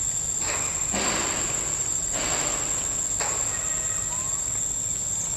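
Steady high-pitched drone of forest insects, with three short rushes of noise, each about half a second to a second long, in the first three seconds.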